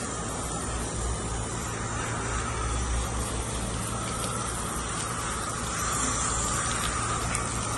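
Garden hose spray nozzle hissing steadily as it sprays water onto a wet Weimaraner's coat, over a steady low hum.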